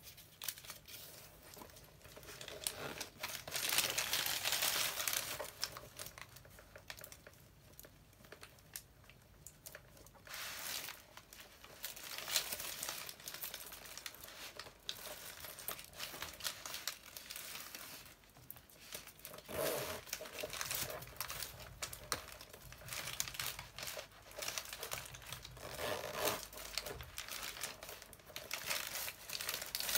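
Plastic bubble wrap and packaging crinkling and rustling in irregular spells as a handbag is handled on it, with scattered small clicks from the bag's metal zippers and hardware.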